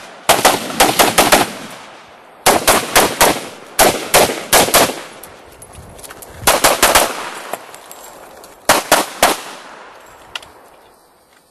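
Live-fire gunshots in five quick strings of three to five shots each, with short pauses between strings. The last string comes about nine seconds in, and then the firing stops.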